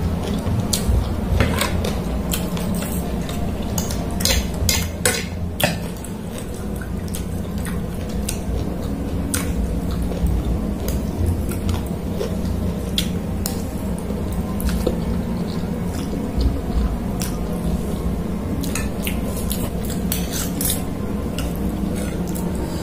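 Metal spoon and fork clinking and scraping on a ceramic plate, sharp clinks in clusters about four to six seconds in and again near the end, with chewing close to a clip-on microphone.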